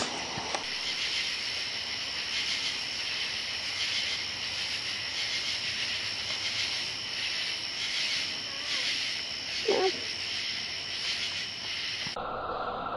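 Night insect chorus: a steady high-pitched pulsing trill, with a brief lower sound about ten seconds in. Near the end it switches abruptly to the same chorus slowed to about a quarter speed, dropping to a much lower, slower drone.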